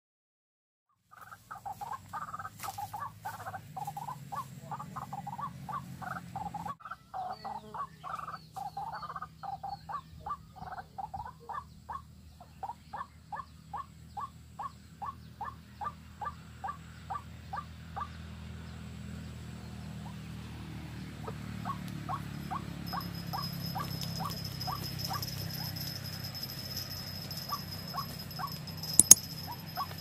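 White-breasted waterhen (ruak-ruak) calls: a long run of short, evenly repeated notes, several a second, that slow down and grow sparser partway through. A steady high insect-like whine comes in later, and two sharp knocks sound near the end.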